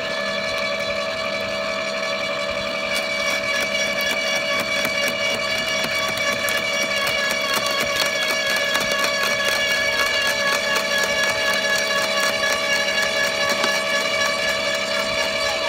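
Makita UD2500 electric shredder running with a steady motor-and-gearbox whine while its slow-turning cutter crushes and snaps thin branches. Rapid crackling of breaking twigs builds up a few seconds in and continues throughout.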